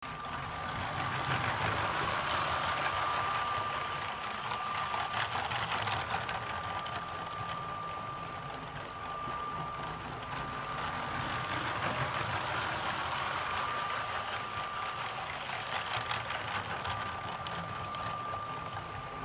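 Lego Powered Up train motor running with a steady thin whine, the plastic wheels rattling and ticking over the track. The sound dips a little in the middle and then comes back.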